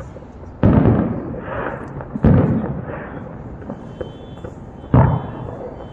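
Aerial fireworks shells bursting: three loud booms, the second about a second and a half after the first and the third nearly three seconds later, each fading away over about a second.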